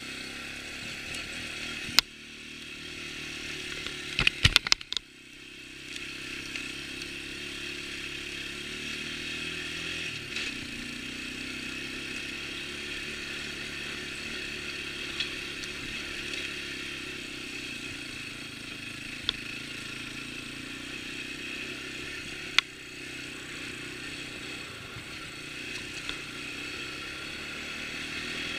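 1988 Yamaha Moto-4 225 ATV's single-cylinder four-stroke engine running under way, its pitch climbing and then dropping about ten seconds in. Sharp knocks cut in about two seconds in and in a rattling cluster around four to five seconds, with a couple more later, as the machine jolts over rough ground.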